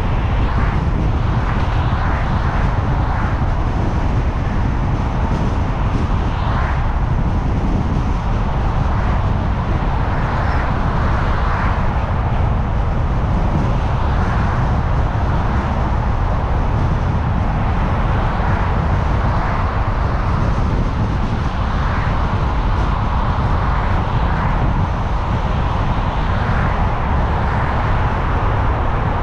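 A car driving on a city road: a steady rumble of tyres and engine, with soft swells now and then from passing traffic.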